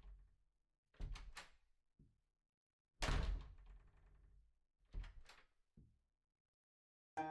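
A series of sharp wooden knocks and thuds, as of timber pieces striking together: three quick knocks about a second in, a louder thud at three seconds, and a few more knocks around five seconds. Plucked-string music comes in at the very end.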